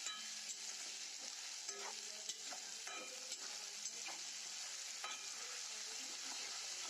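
Onions with ginger-garlic paste sizzling in hot mustard oil in a kadai, a steady hiss, with a spoon clicking and scraping against the pan as it is stirred.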